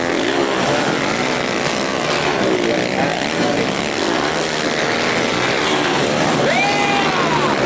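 Several dirt bike engines revving and shifting as riders accelerate along a motocross track, their overlapping pitches rising and falling. One engine revs up sharply and falls back near the end.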